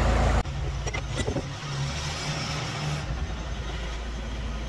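An engine running steadily at low speed, with a few faint knocks about a second in. A louder low rumble cuts off abruptly about half a second in.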